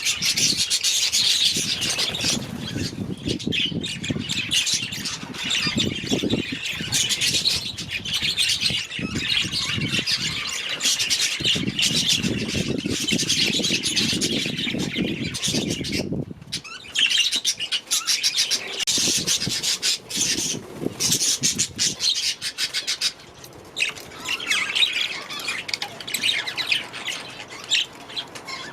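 A flock of budgerigars chattering and squawking, a dense, continuous high twittering. A low rumble runs underneath for the first half and cuts off suddenly about halfway, after which the chatter comes in looser bursts.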